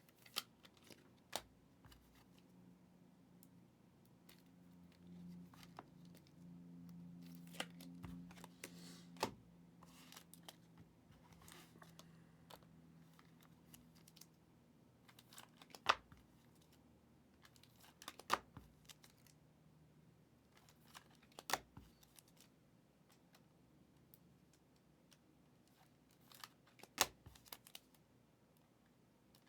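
Trading cards and their packaging being handled on a table: soft rustles and scattered sharp clicks and taps, a few louder ones, with a faint low hum for a while in the first half.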